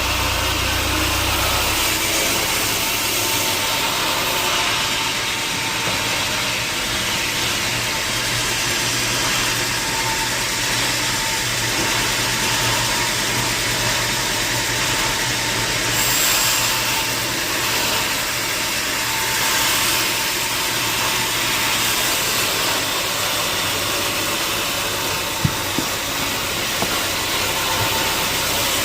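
Sawmill machinery running steadily: a continuous mechanical drone with a faint steady whine and a low hum. A couple of sharp knocks come near the end.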